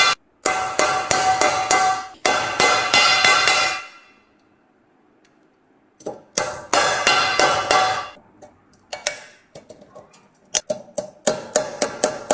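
Rapid hammering on metal, about six ringing strikes a second, in runs broken by a pause of about two seconds; then scattered light taps and a slower run of ringing strikes near the end.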